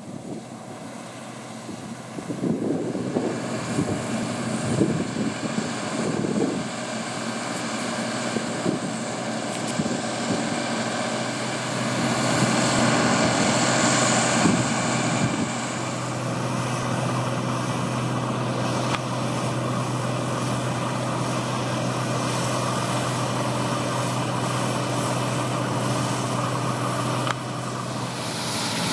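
New Holland Clayson 8070 combine harvester cutting and threshing barley: the diesel engine and threshing works run with a steady drone, growing louder a little under halfway through as the machine passes close.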